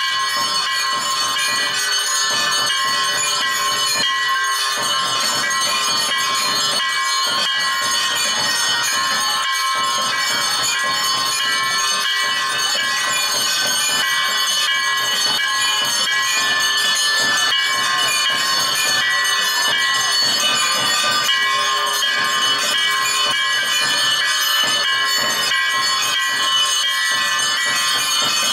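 Many bells ringing without pause, their overlapping tones merging into a steady, unbroken ring.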